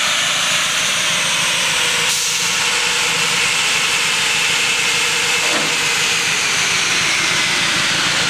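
Steady loud rush of air from a large dyno cooling fan blowing into the front of a Subaru WRX wagon on a chassis dyno. There is no revving; a faint steady tone sits underneath.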